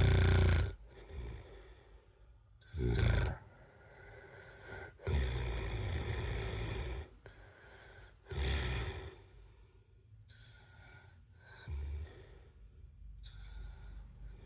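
A man snoring: a run of irregular snores and snorts, the longest lasting about two seconds, with fainter breaths in the last few seconds.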